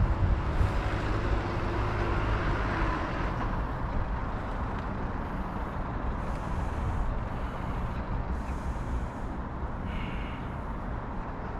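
Steady road-traffic noise, a continuous low rumble of passing vehicles, with a brief higher tone about ten seconds in.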